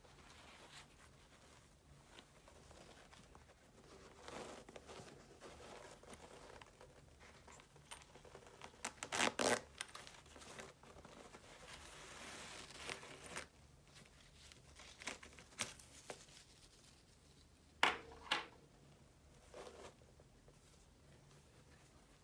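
Faint handling noise of a sneaker being turned over in cotton-gloved hands: soft rustling and crinkling against its knit pouch and mesh, with a few sharper scrapes, loudest about halfway through and again about two-thirds through.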